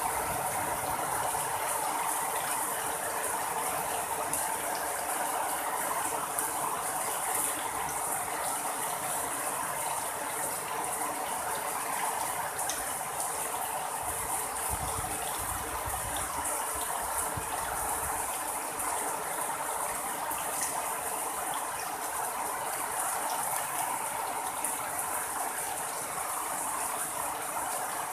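Heavy rain pouring steadily onto puddled ground and banana leaves, with a low rumble for a few seconds about halfway through.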